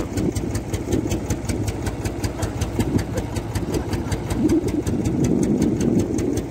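Tractor engine idling steadily, with an even, rapid beat of about seven pulses a second.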